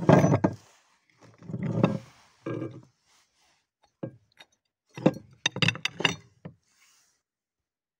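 Hand-crank meat grinder being taken apart: metal parts (blade, auger, perforated plate) clinking and knocking against the housing and the plate, with scraping through packed cookie crumbs. The loudest scrape comes right at the start, and a quick cluster of sharp clinks comes about five to six and a half seconds in.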